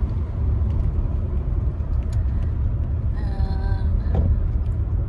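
Steady low road and engine rumble inside a car's cabin while driving. A brief pitched sound comes about three seconds in.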